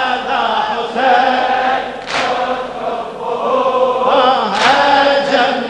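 Men's voices chanting an Arabic Shia elegy (latmiyya) for Imam Husayn, a lead voice on the microphone with a chorus of other voices joining in. A few sharp slaps cut through the chant.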